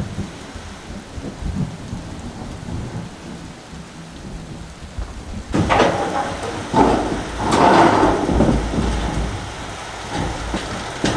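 Rain falling on wet concrete and on a corrugated steel roof. From about six seconds in, loud low rumbling and rattling as sheets of old corrugated steel siding are pushed into place on the roof rafters.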